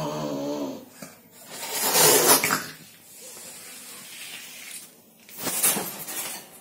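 Cat hissing twice, each hiss about a second long, after a low growl trails off at the start.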